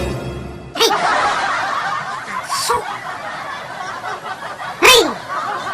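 Laughter, many voices snickering and chuckling together, with two sharper, louder bursts about a second in and near the end, the second the loudest.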